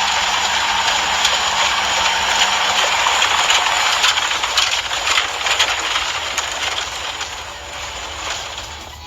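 High-pressure washer jet spraying a surface: a loud, steady hiss of water that fades over the last few seconds. A faint steady hum runs under it and stops about three seconds in.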